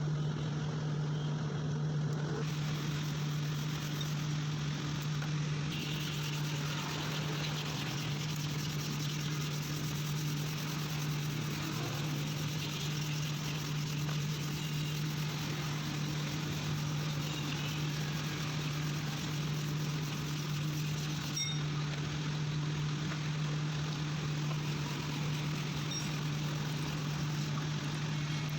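A small motor running at a steady speed with a constant hum and a hiss.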